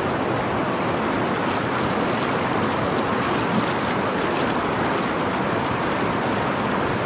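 Whitewater rushing over a shallow, rocky river rapid: a steady, even rush of water.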